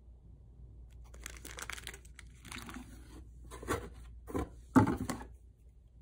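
Rustling of plastic snack wrappers and a cardboard box as things are handled and a hand reaches into the box. This is followed by a few knocks, the loudest one near the end.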